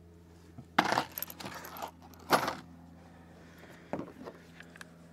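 Three sharp metallic clinks, each followed by a brief rattle, about a second and a half apart: small metal objects being handled and set down.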